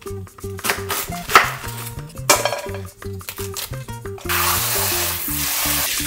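Cabbage leaves handled in a stainless steel bowl at a kitchen sink, with a few sharp knocks and clatters in the first couple of seconds. From about four seconds in, a steady rush of tap water runs over the leaves. Background music plays throughout.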